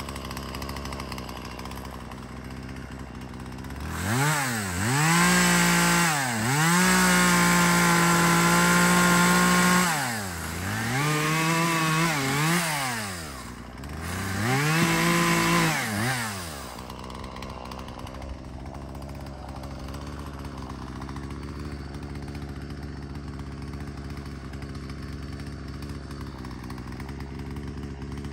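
Gas chainsaw idling, then revved to full throttle three times: the first rev held for about five seconds, the next two shorter, each rising and falling in pitch. It then drops back to a steady idle.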